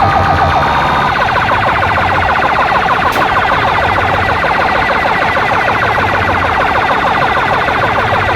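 Siren-like warbling effect blasted through large DJ sound systems: many fast, overlapping rising-and-falling whoops over a booming bass, with rival rigs clashing into a loud cacophony.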